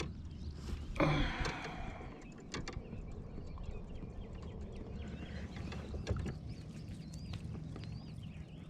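Gear knocking and clattering in a kayak, with a sharp rattling knock about a second in and a few lighter clicks after it. Faint high chirps come near the end.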